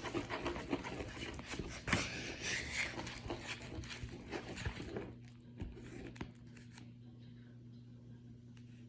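Hands squeezing and pulling at over-activated slime: a run of sticky crackling and popping clicks that dies away about five seconds in. A faint steady hum lies underneath.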